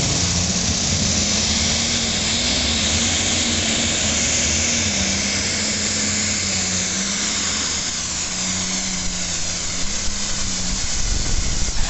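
Turbocharged diesel super stock pulling tractor under full throttle through a pull, a loud steady roar with a high whine on top. The engine pitch wavers up and down as it works against the load.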